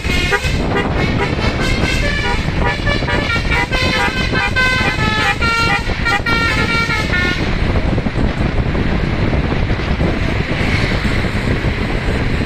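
Bus telolet 'basuri' musical air horn playing a fast run of changing notes for about seven seconds, then stopping, leaving road noise.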